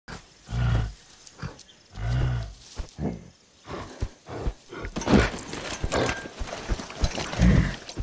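A gorilla giving short, deep grunts: three of them, a little over a second in, about two seconds in and near the end, with scattered noisier sounds around the middle.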